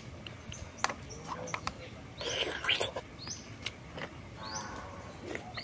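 Close mouth sounds of eating grilled oysters: a slurp about two seconds in, then chewing with wet lip smacks and small clicks.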